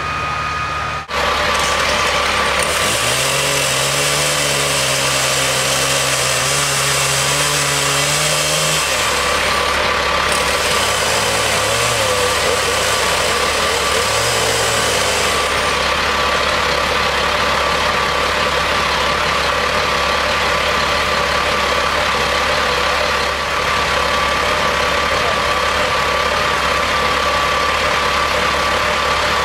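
Engines running steadily. Between about 10 and 15 seconds in, a chainsaw cuts through the log lying across the school bus roof, adding a harsher, hissier edge to the noise.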